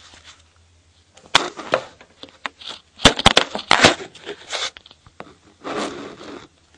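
Handling noise close to the microphone: bursts of rubbing and scraping with a few sharp clicks and knocks as the camera is moved about.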